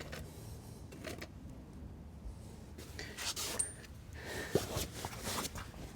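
Light metallic clicks and taps, a few at a time, as a motorcycle footrest, its pivot pin and mounting bracket are handled and lined up for the pin to slide through.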